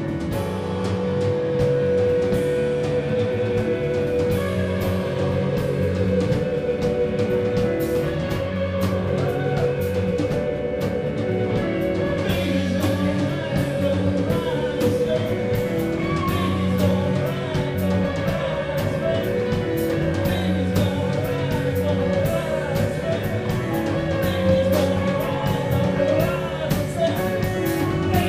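Live blues band playing electric guitar, bass guitar and drum kit, with a singer holding long wavering notes over a steady beat.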